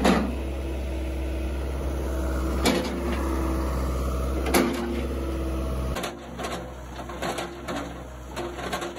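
Ford 655C backhoe's diesel engine running with a steady hydraulic whine as its bucket presses down on a wooden fence post, with three sharp knocks. The deep engine hum drops away about six seconds in.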